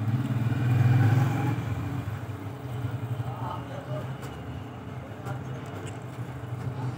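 An engine running steadily in the background, getting louder for a moment about a second in, with faint voices.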